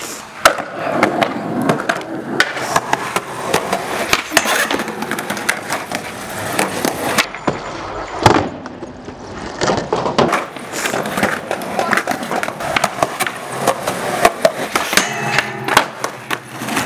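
Skateboards rolling on concrete, with repeated sharp clacks of tails popping and boards landing. The loudest knock comes about 8 seconds in.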